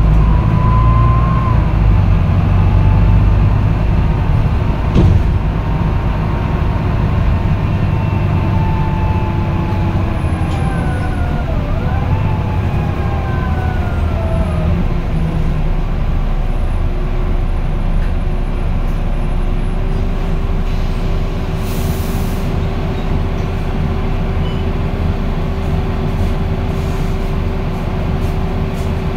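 Volvo B9TL double-decker bus running, heard from inside the passenger cabin: the six-cylinder diesel rumbles under the whine of the Voith automatic gearbox. About twelve seconds in the whine falls and then climbs again. Later a steady hum settles in, with a short hiss of air about twenty-two seconds in.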